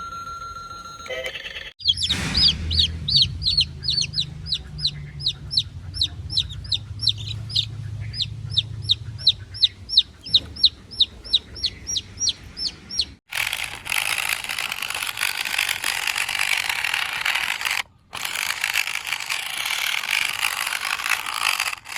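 Chickens: a long, regular run of high, falling peeps, about three a second, over low clucking, giving way after about 13 seconds to a dense, noisy chatter.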